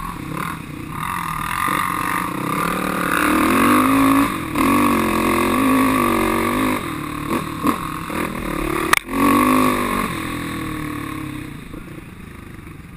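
ATV engine running under throttle, heard from a camera on the quad's front rack, its pitch rising and falling as the rider works the throttle. A sharp click comes about nine seconds in, and the engine quietens near the end.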